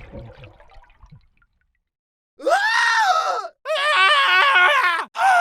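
High-pitched horror sound-effect screams: after a quiet fading sound and a second of silence, one scream rises and falls, then a second scream wavers quickly up and down in pitch, and a third begins near the end.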